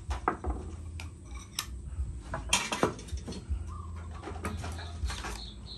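Scattered light clinks and knocks of tableware at a meal: chopsticks, ceramic bowls and glasses set against a metal tray, over a low steady hum.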